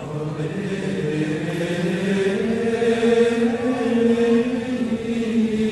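Slow, chant-like vocal music: long held notes that slide gently in pitch, getting louder in the first second.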